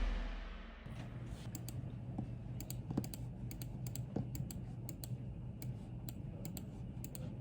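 Typing on a computer keyboard: irregular key clicks over a steady low hum. The tail of a music cue fades out in the first second.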